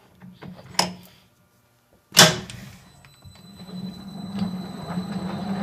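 A few light metal clicks and knocks, then a loud clunk about two seconds in as the metal lathe is switched on, and the spinning chuck runs with a steady hum that grows louder toward the end.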